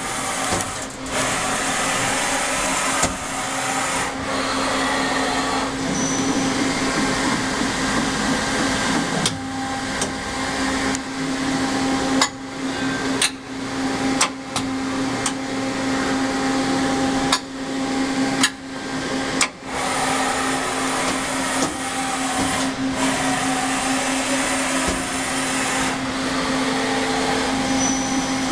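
Daewoo Puma 12L CNC lathe running, a steady machine hum with a strong low drone. Several sharp clicks and brief drops in the sound come about halfway through.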